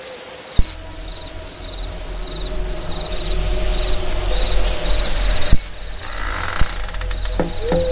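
Eerie night soundscape: crickets chirping steadily over a low rumble, broken by sudden sharp hits about half a second in and again about five and a half seconds in. A hiss swells and cuts off at the second hit, and a hoot-like call comes near the end.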